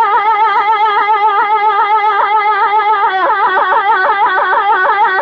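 A solo singing voice, unaccompanied, holding one long note with a wavering, ornamented pitch. About three seconds in, the ornament quickens into a rapid trill.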